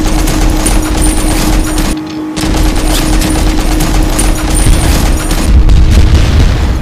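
Belt-fed machine-gun sound effect: sustained rapid automatic fire in two long bursts, broken by a short pause about two seconds in, stopping right at the end.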